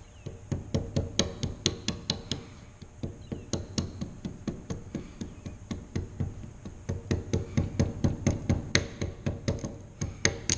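A mallet tapping the handle of a bench chisel in quick light strokes, about three or four a second with a short pause about three seconds in, as the chisel chops out a groove across a board.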